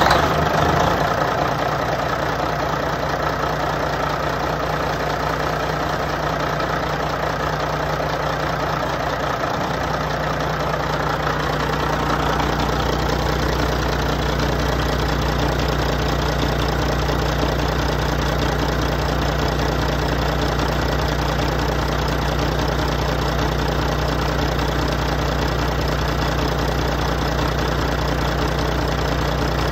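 Caterpillar C15 (6NZ) inline-six diesel truck engine running at a steady idle; the deep rumble grows stronger about ten seconds in.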